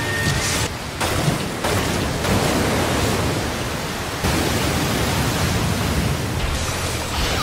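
Anime sound effect of a massive blast: a dense, steady rush of noise with a low rumble, like a shockwave and flying debris, shifting abruptly several times.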